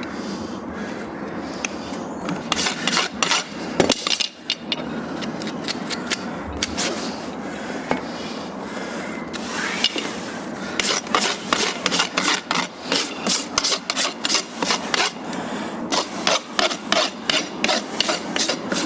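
Farrier's rasp filing the wall of a horse's hoof in several runs of quick strokes, dressing off the flares.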